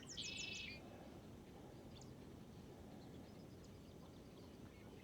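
A songbird calls once, briefly, at the start: a few quick falling notes and then a short buzzy phrase. After that only faint outdoor background remains, with a few faint chirps.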